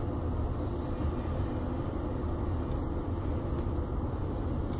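Steady low background rumble, with a faint tick about three seconds in.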